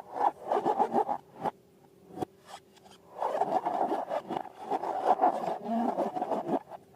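Close-up rubbing and crackling of rubber balloons and slime being handled: two stretches of rapid, rasping friction sounds with a short lull between.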